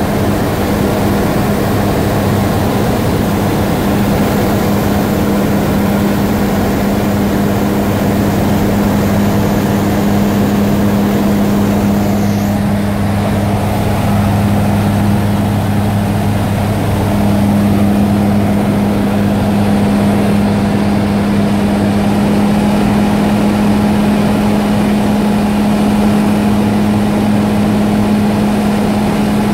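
Engine and propeller of an Aeropro Eurofox light aircraft in flight, heard from inside the cabin as a loud, steady drone over rushing air. The drone's pitch shifts slightly a little past halfway.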